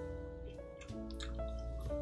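Soft background music of slow, held notes that change every half second or so, with a few faint clicks of someone chewing a hamburger.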